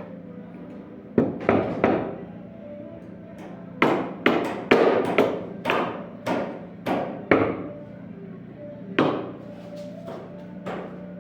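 Hammer striking repeatedly, sharp blows about two a second in runs with short pauses between: three blows, then a run of about ten, then four more near the end.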